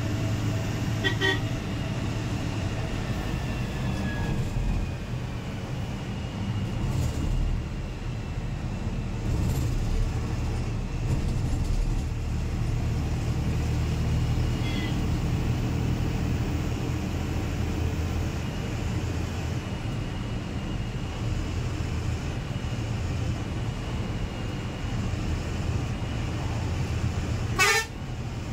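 Steady engine hum and road noise inside the cabin of an Ashok Leyland BS VI diesel coach cruising on the highway, with short horn toots. A brief, loud rising sweep comes near the end.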